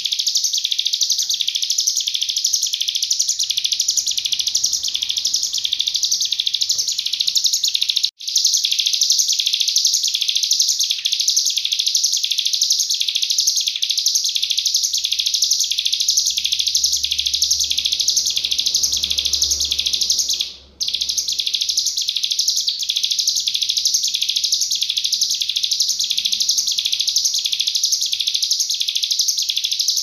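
Cigun (hill prinia) singing in its rapid 'nembak' style: a fast, evenly repeated series of high, sharp notes that runs on without a pause except for two brief dropouts, one about a third of the way in and one about two-thirds in.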